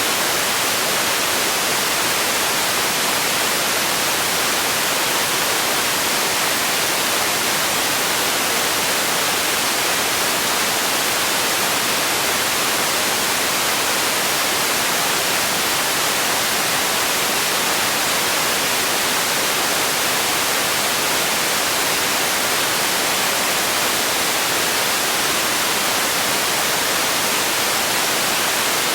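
Steady synthetic white noise: an even, hissing static with most of its energy in the higher frequencies and no change in level.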